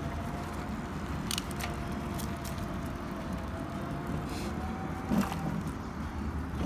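Electric mobility scooter riding along a paved trail: a steady thin motor whine over the low rumble of its wheels, with scattered clicks and a brief knock about five seconds in.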